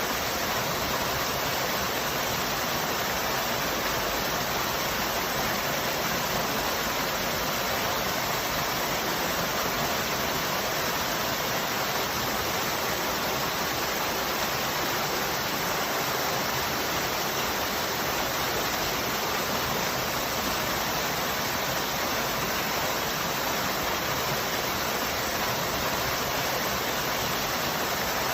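Waterfall: falling water rushing in a steady, unbroken stream of noise.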